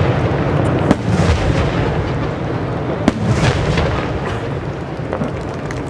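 Aerial firework shells of a large starmine display bursting in a continuous rumble and crackle, with sharp bangs about a second in and about three seconds in, easing slightly toward the end.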